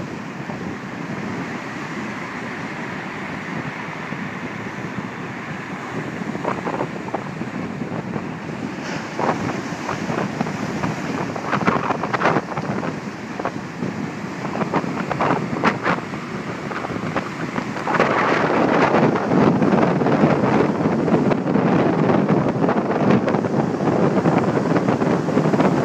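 Rough sea surf breaking and washing over rocks and shingle, with wind buffeting the microphone in brief gusts. It grows louder about two-thirds of the way in.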